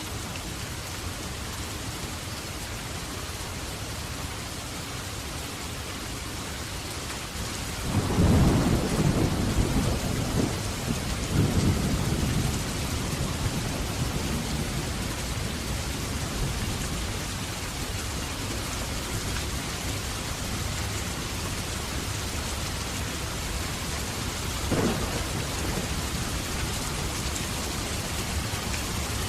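Steady heavy rain with a thunderclap about eight seconds in that rolls on in two swells for around five seconds, then a short sharp crack of thunder near the end.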